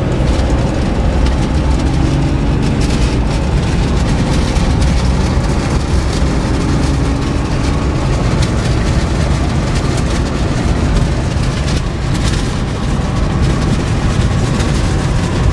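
Cummins turbo diesel pickup accelerating hard, its engine note rising slowly under heavy wind noise on the microphone.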